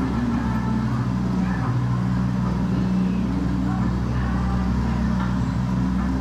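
The soundtrack of a multi-screen video installation: a steady low drone with faint, indistinct voices over it.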